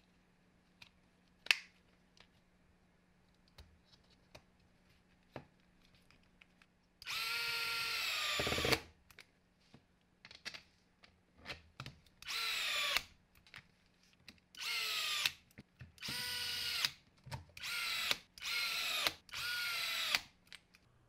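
Small electric screwdriver driving the housing screws of a cordless impact driver, in about seven short runs whose pitch drops as each screw tightens and seats; the first run is the longest. Before that, a few light clicks of parts being handled.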